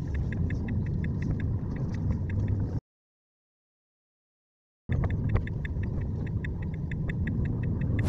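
Sped-up recording from inside a Tesla: steady road and tyre rumble with the turn signal clicking fast, about five clicks a second. The sound cuts out completely for about two seconds near the middle, then resumes.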